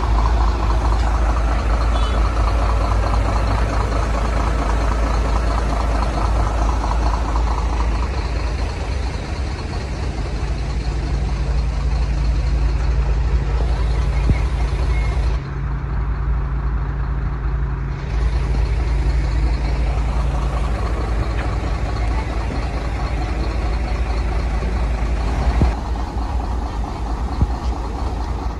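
Truck engines running at idle: a steady low rumble with a low hum, changing in character a few times.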